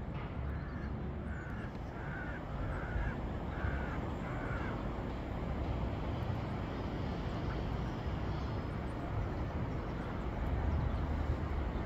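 A crow cawing six times in quick succession, about one call every three-quarters of a second, over the first five seconds. A steady low rumble runs underneath.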